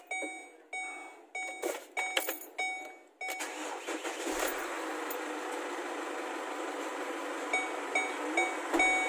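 Chevrolet Trailblazer's dashboard warning chime sounding repeatedly with a few clicks, then its engine catches about three seconds in and runs steadily while the chime keeps sounding. The engine is being started after a fuel-filter change, with the fuel system just primed by cycling the ignition.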